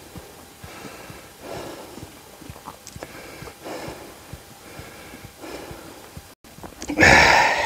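Heavy breathing of a climber working up a steep rock slab on a fixed rope, a breath about every second, with a loud gasping exhale near the end.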